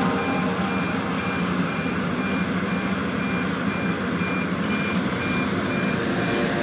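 A heavy construction machine's diesel engine runs steadily while its reversing or travel alarm sounds a string of evenly spaced high beeps.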